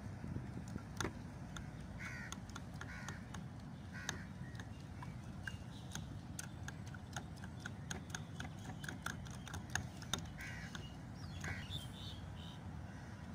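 Crows cawing several times, in a group of three near the start and two more near the end. Between the calls comes a quick run of light clicks as a plastic spoon beats eggs against a ceramic bowl, over a steady low rumble.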